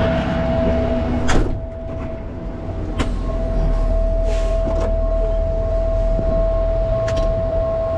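Peterbilt rollback tow truck's diesel engine running as the truck backs up, with a steady whine over the rumble that drops out briefly near the start. Two sharp knocks, one just over a second in and another about three seconds in.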